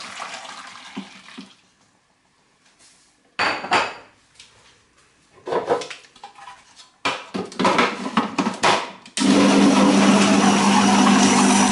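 Hot milk poured into a food processor bowl of crumbled cheese, then plastic clattering and clicking as the lid is fitted. About nine seconds in, the food processor's motor starts and runs steadily with a loud hum, beating the cheese filling.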